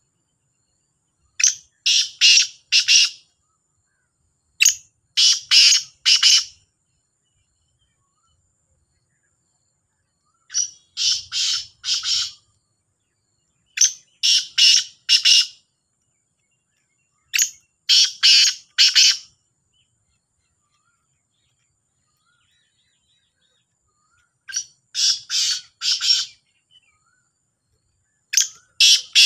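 Caged black francolins calling: a phrase of three or four short, harsh notes, repeated every few seconds, seven phrases in all.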